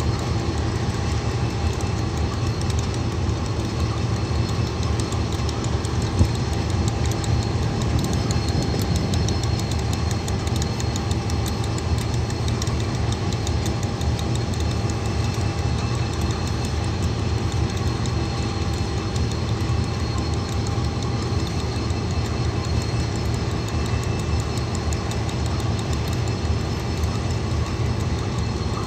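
KiwiRail DX-class diesel-electric locomotive's V12 diesel engine idling with a steady low rumble and hum, holding an even level throughout.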